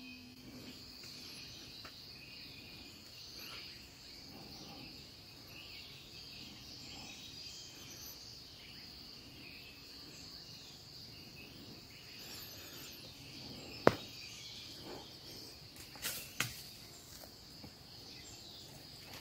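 Night insects, crickets among them, chirring steadily in a high, even drone. A single sharp crack cuts through about two-thirds of the way in, followed by two softer knocks a couple of seconds later.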